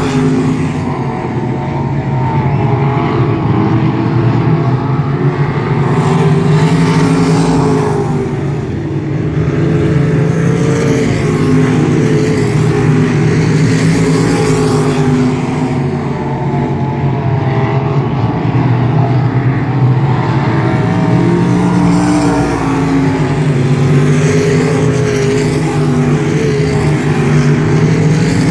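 Race car engines, among them a winged dirt-track car, running laps around a dirt oval during practice. The engine noise swells and fades every seven or eight seconds as the cars circle the track.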